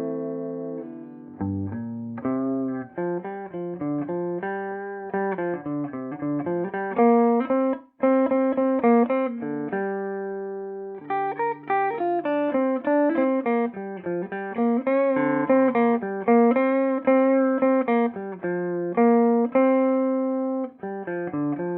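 Electric guitar played through a Peavey Bandit 112's TransTube clean channel in classic voicing, high-gain input: a run of picked single notes and chords, with a few notes left ringing. The combo has a 12-inch Blue Marvel speaker.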